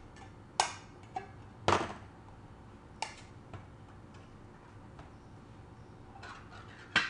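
Large metal can of fruit cocktail being forced open by hand, with difficulty: a few sharp metallic clicks and knocks a second or more apart, a short scrape about two seconds in, and a loud click near the end as the lid gives.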